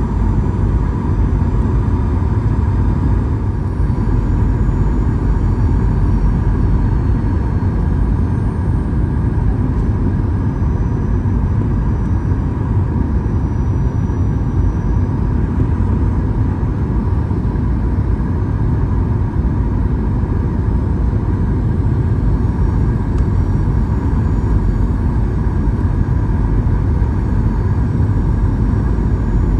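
Cabin noise of a Boeing 737-800 descending on approach, heard from a window seat over the wing: a steady low rumble of airflow and its CFM56-7B turbofan engines, with a faint steady whine above it.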